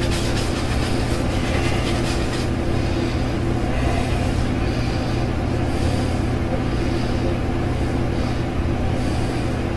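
Steady low mechanical hum throughout. During the first two seconds or so there is scratchy scrubbing from a synthetic shaving brush working lather over a shaved scalp.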